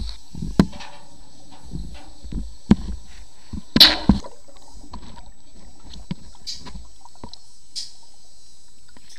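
Sound picked up by an underwater camera while submerged: muffled knocks, clicks and water sloshing against the housing, with a louder sloshing rush about four seconds in.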